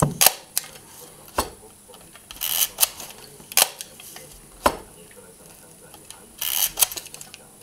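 Porst Uniflex SLR being worked by hand: sharp clicks of the focal-plane shutter and mirror firing, several times, with two short rasping winds of the film advance lever between them.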